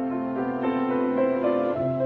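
Instrumental background music with a keyboard melody, notes changing in steps.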